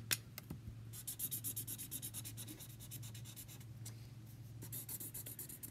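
Felt-tip marker scribbling on paper in quick back-and-forth strokes, colouring in a filled area, in two spells: the first from about a second in, the second near the end.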